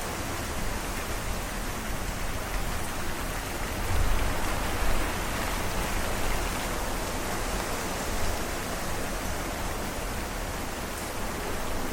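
Storm sound: heavy rain as a steady, dense hiss, with two brief low rumbles about four and five seconds in.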